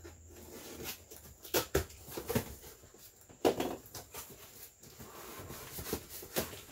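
A cardboard shipping box and its packing material being handled and opened by hand, making irregular rustles, scrapes and knocks, the loudest a little over a second and a half in and again about three and a half seconds in.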